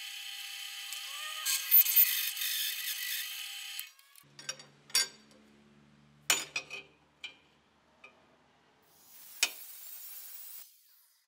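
Drill press running and drilling through a steel bar, a steady whine with a few loud scraping bites, which stops about four seconds in. A few metal clanks follow, some ringing briefly, as the steel bar is handled. Near the end an angle grinder briefly cuts the steel.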